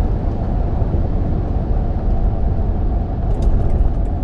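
Tire and road noise at speed, heard from inside the cab of a Toyota Sequoia: its Mickey Thompson Baja Boss all-terrain tires give a steady low rumble and hum, with a few faint ticks near the end.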